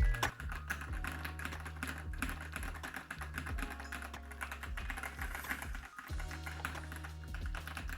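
Rapid typing on a Keychron V6 mechanical keyboard: a dense, continuous run of key clicks over background music with a steady bass line.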